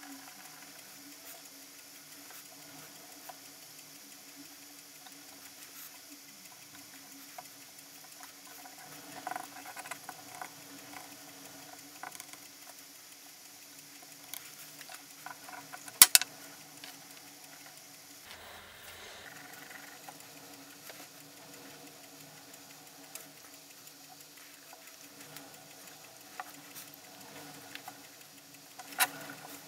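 Light scratching and tapping of hands working at a wooden bench while glue is spread with a swab, over a faint steady hum. A sharp click comes about halfway through and another near the end.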